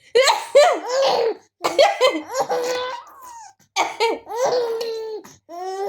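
A young child laughing hard in several high-pitched bouts, each a run of quick giggles, with short breaths in between.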